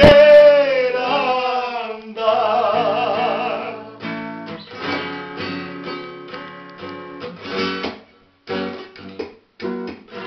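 A man sings long held notes with a wavering vibrato over an acoustic classical guitar. After about four seconds the voice stops and the guitar plays on alone, strumming and picking chords, with a brief break about eight seconds in.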